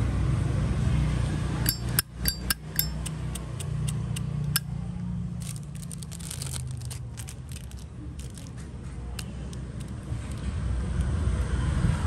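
Metal Zippo lighters being handled: a quick run of sharp metallic clicks and clinks, some with a brief ring, about two seconds in, then a looser spell of clicking and scraping around the middle, over a steady low rumble.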